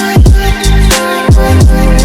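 Background music: an electronic hip-hop track with deep, sharply falling bass kicks over held synth chords.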